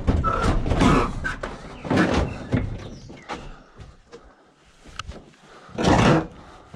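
Scrap Ford Transit van doors and metal panels banging and scraping as they are shoved into a van, in several separate bursts with the loudest about six seconds in.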